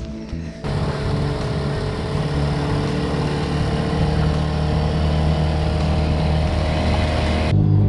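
Outboard motor on a small aluminium boat running steadily under way, with a rush of wind and water. It cuts in abruptly about a second in and cuts off abruptly near the end.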